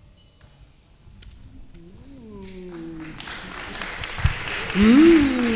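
Audience applause starting about three seconds in and building, with whoops and cheers rising and falling over it.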